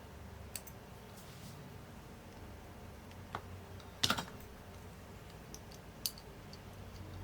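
A few scattered light clicks and taps of small tools and parts being handled on a workbench, the loudest a short cluster about four seconds in, over a low steady hum.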